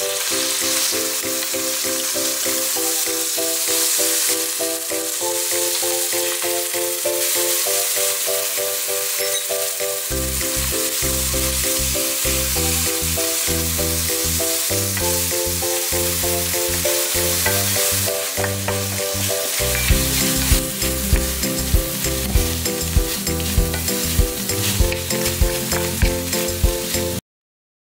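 Shrimp sizzling as they fry in oil in a stainless steel pan, with a steady hiss under instrumental background music. A bass line comes in about a third of the way through and a regular beat later on, and everything cuts off abruptly just before the end.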